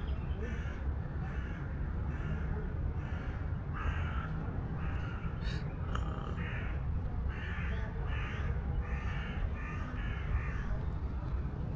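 Crows cawing over and over, a long series of short, harsh caws, over a low rumble.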